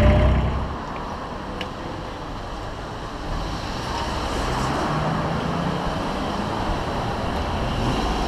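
A boat's idling engine breaks off about half a second in and gives way to street traffic: a steady hum of cars, growing louder from about three seconds in as vehicles drive past close by.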